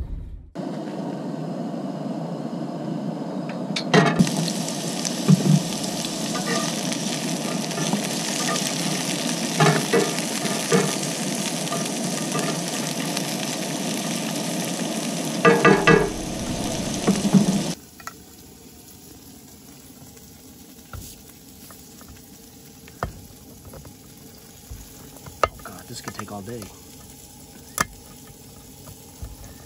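Diced red peppers sizzling in a cast-iron skillet, with occasional clacks and scrapes of a spatula stirring them. The sizzle cuts off suddenly about 18 seconds in, and a quiet stretch follows with scattered small clicks of a lever-type can opener being worked around a can's lid.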